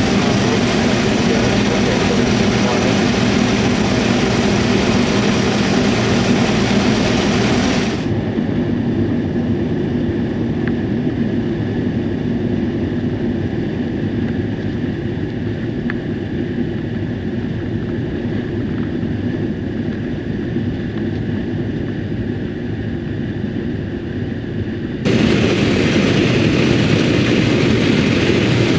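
Combine harvester running steadily while shelling corn, a heavy machine drone. About eight seconds in the sound abruptly turns muffled, its higher part dropping away, and some seventeen seconds later it abruptly returns full.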